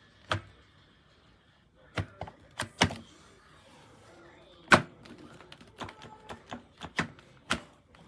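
Irregular sharp clicks and knocks of hard plastic vacuum cleaner parts being handled, about a dozen, the loudest a single knock near the middle and a quicker run of clicks later on. The vacuum's motor is not running.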